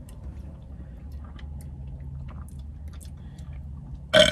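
Quiet eating sounds: faint clicks of plastic spoons in sundae cups and chewing over a low steady hum, with a short, loud burst near the end.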